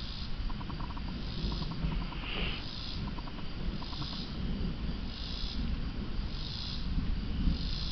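Insects chirping in a steady repeating rhythm, about one call a second, over a continuous low rumble from the approaching thunderstorm.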